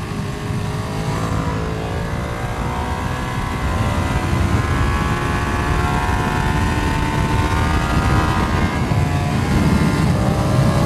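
Sports motorcycle engine pulling hard at speed on a race track, its pitch climbing steadily through the first half and then dipping slightly near the end, with strong wind rush over the onboard microphone.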